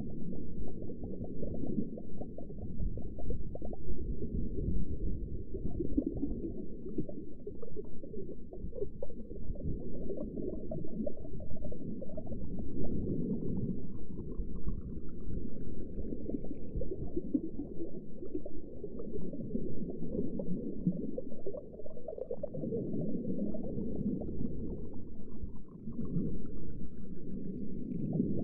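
Underwater ambience: a low, dense bubbling and gurgling of water that goes on without a break, with a faint rising whistle twice, around the middle and near the end.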